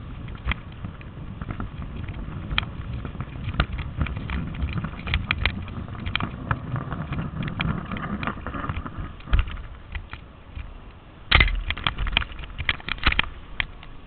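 Handling noise from a camera being hauled up on a line: an uneven low rumble with scattered clicks and knocks on the camera body. A burst of louder knocks comes about eleven seconds in, as the camera is brought in.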